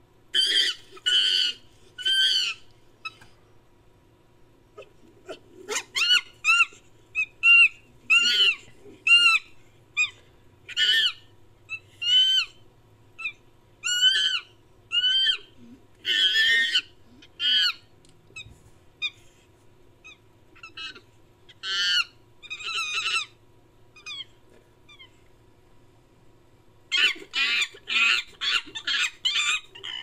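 Ape-man creature sound effect built from chimpanzee calls: a series of high hoots, each rising and then falling in pitch, about one a second with short pauses, crowding into a fast burst near the end.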